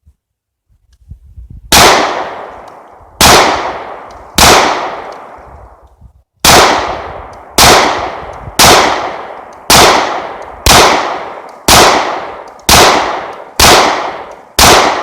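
Taurus PT-111 G2 9mm pistol firing twelve shots of 147-grain HST ammunition, loads with some heat to them: three shots spaced about a second and a half apart, a pause of about two seconds, then nine more at a steady pace of about one a second.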